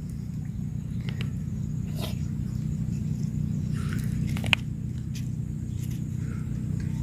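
A steady low engine hum, growing slightly louder, with a few sharp clicks, the loudest about four and a half seconds in.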